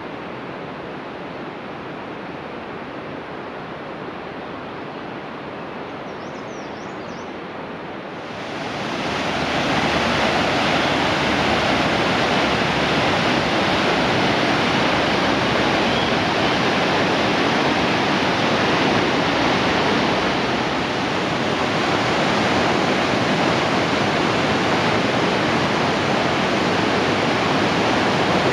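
Rushing water of a fast mountain river running over rocks, a steady noise that jumps much louder about eight seconds in and then holds steady.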